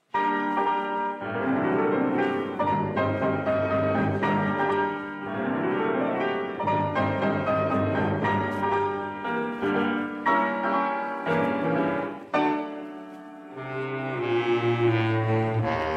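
Orchestral music bridge of a radio drama, the cue that opens the next act, with rising sweeps in its first half and a lower, quieter passage near the end.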